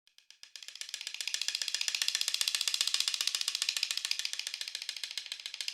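A fast, even train of dry clicks, many per second, fading in over about the first second and then holding steady.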